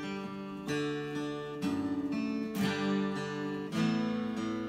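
Acoustic guitar strummed alone in the closing bars of a country song, each chord ringing out, with a new strum or chord change about once a second.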